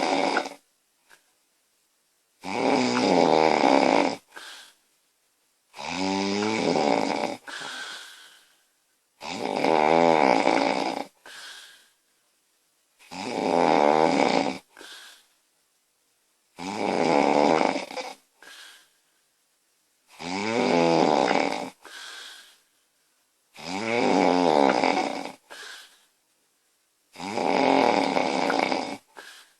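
A woman snoring loudly in her sleep, in a steady rhythm of about one long rasping snore every three and a half seconds. Each snore is followed by a short, fainter breath sound.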